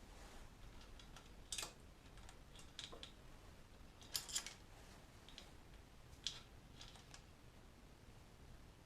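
Faint, scattered sharp clicks and light taps, about a dozen with gaps between them and a double click near the middle, as of hand tools and small parts being handled.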